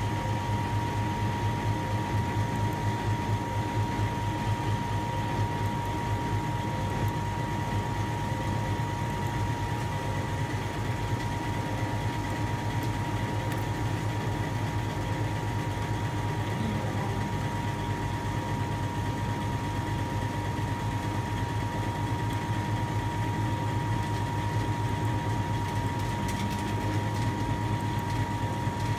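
Hydraulic power unit of a 60-tonne tensile testing machine running steadily: a low hum with a constant high whine over it.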